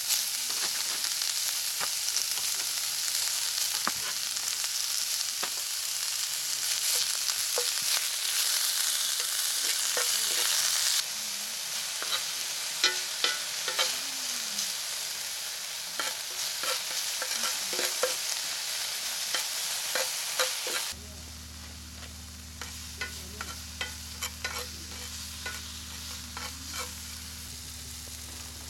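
Beef with onions and garlic sizzling in a cast-iron skillet, loudest for the first third, with a spatula clicking and scraping against the pan as the food is stirred. About two thirds in the sizzle drops quieter and a low steady hum comes in under it, while the clicks go on.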